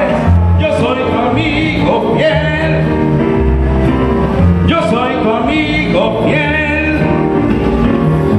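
A man singing live into a handheld microphone over a recorded backing music track, both amplified through loudspeakers.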